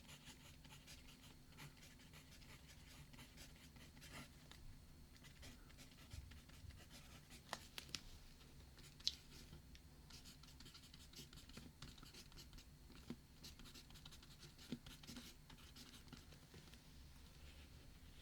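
Faint scratching and light tapping of writing on paper, with a sharper tick about halfway through.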